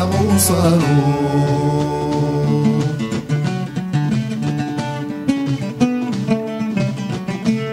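Mandolin-style lute with paired strings picked in an instrumental passage: held notes at first, then a quicker run of short picked notes from about three seconds in.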